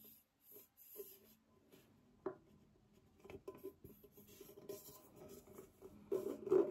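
Hands pressing and handling a dented metal fragrance tin to push the dent out: irregular scraping and rubbing, a sharp click about two seconds in, and a louder burst of handling near the end.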